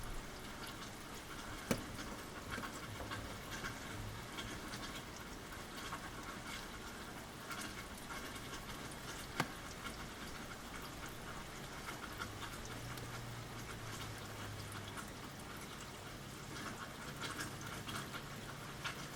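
Rain falling, a steady hiss dotted with small drop ticks and two sharper drips, about two seconds in and about nine seconds in.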